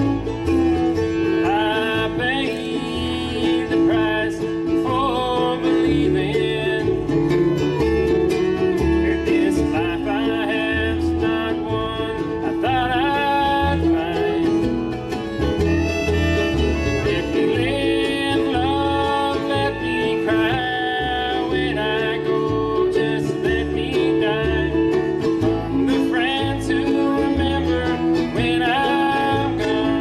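Bluegrass string band playing live: fiddle, mandolin, acoustic guitar and upright bass together, with a walking bass line under sustained fiddle notes and a plucked melody.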